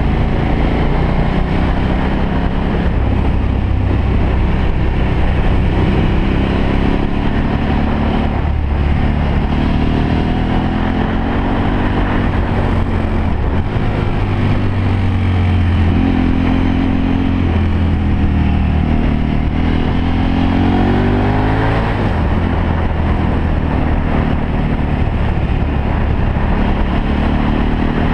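Motorcycle engine running under way, heard from on board over a steady rushing noise. Its pitch rises and falls as the throttle is opened and eased through the curves, with a long climb about twenty seconds in that breaks off suddenly.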